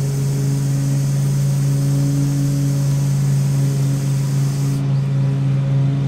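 Aerosol chain wax hissing steadily onto a motorcycle drive chain, cutting off suddenly near the end. A steady low hum runs underneath.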